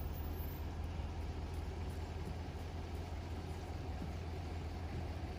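A steady, unchanging low rumble of urban outdoor background noise, with a faint even hiss above it.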